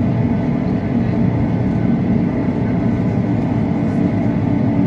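Steady low cabin rumble inside a Boeing 737-800 taxiing after landing, its CFM56 engines running at idle.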